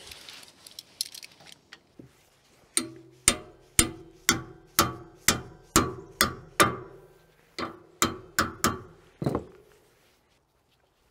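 Hammer blows on a steel bracket bar, about two a second, each ringing briefly: a run of about nine blows, a short pause, then about five more. The blows are bending the homemade light-mount bracket to a new angle.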